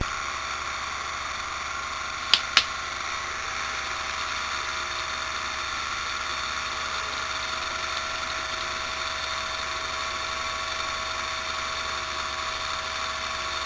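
Steady electrical hiss with faint steady whining tones from a flyback high-voltage supply (roughly 10 to 20 kV) running a simple ionic motor, the air ionizing at the tips of its spinning blades. Two sharp clicks about two and a half seconds in.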